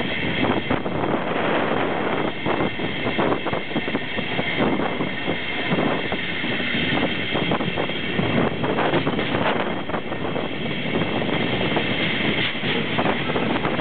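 Passenger train hauled by a DB class 110 electric locomotive rolling through points, heard from an open coach window. Wind rushes over the microphone, wheels clatter irregularly over switches and rail joints, and a steady high whine runs underneath.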